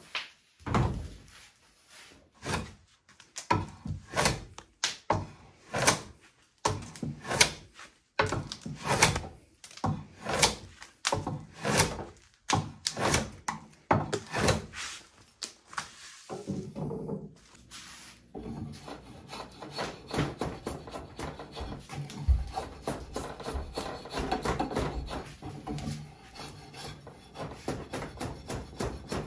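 Vintage L&IJ White timber-framing drawknife taking heavy rough-out cuts in wood: repeated shaving strokes, each a short scraping tear, about one and a half a second. After about 18 s the strokes run together into a denser, steadier scraping.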